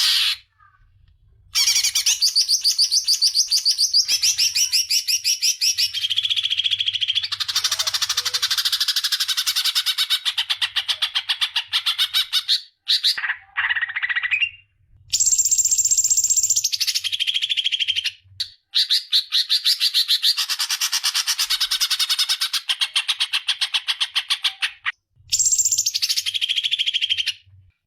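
Songbird song in loud, fast rattling trills and scratchy chatter. It comes in phrases several seconds long, broken by brief pauses.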